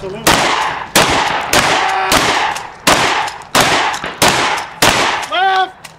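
Shotgun firing a rapid string of about eight shots, roughly one every two-thirds of a second, each a sharp crack with a short echoing tail.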